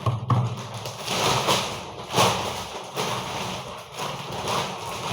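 Groceries being handled and unpacked: a series of rustles and light knocks, with sharper hits near the start and about two seconds in.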